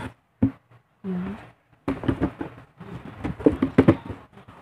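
A mesh sneaker being handled and turned over in the hands: a quick run of rustles and light knocks from the shoe and its packaging.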